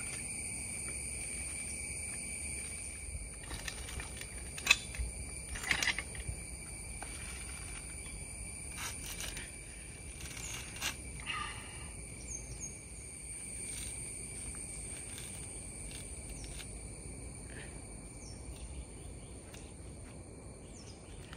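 A coconut being husked by hand on a metal husking spike: scattered sharp cracks and snaps as the fibrous husk is prised off, over a steady high-pitched background drone.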